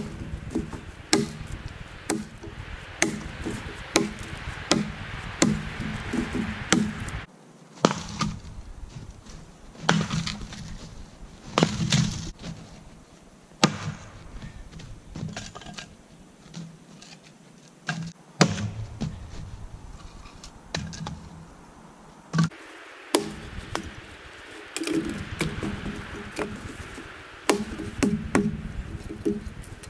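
Axe chopping into a felled tree trunk lying on the ground, cutting it into lengths. Sharp strikes come about once a second at first, thin out through the middle and come thick again near the end.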